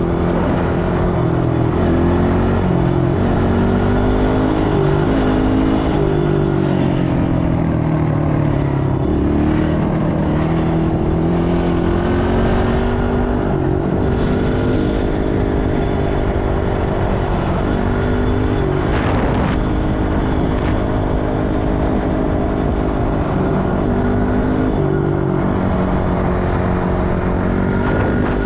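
ATV engine running under way, its pitch stepping up and down every few seconds as engine speed changes.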